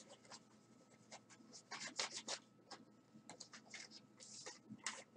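Cloth wiping and rubbing over a cassette recorder's casing: faint, irregular scratchy strokes in short clusters.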